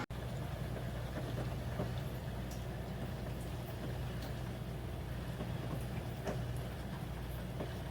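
Portable countertop dishwasher running: a steady low motor hum with faint scattered ticks.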